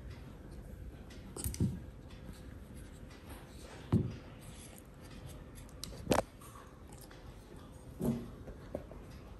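A beagle puppy pawing and nosing at a dog-head-shaped speaker on a tabletop: four soft knocks and scrapes about two seconds apart.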